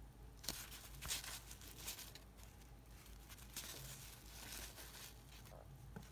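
Cardboard trading cards from a stack of 1987 Donruss baseball cards sliding and rustling against each other as they are flipped through by hand. The rustling comes as a handful of faint, short swishes about a second apart.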